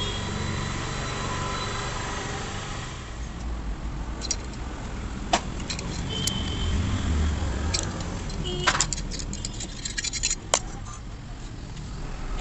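Scattered metallic clicks, knocks and clinks of tools and scooter engine parts being handled during assembly, a few ringing briefly, over a steady low rumble.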